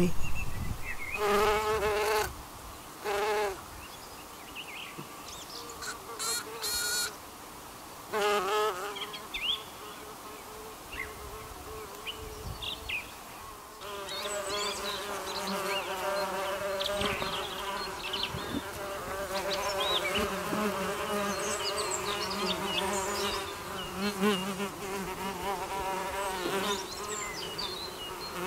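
Red mason bees (Osmia cornuta) buzzing, with males scrambling to mate with a female. Short separate bursts of wing buzz come in the first half. From about halfway, overlapping buzzes at several pitches run on continuously.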